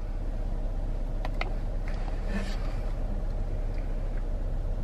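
Steady low hum in a car's cabin, with a few faint clicks.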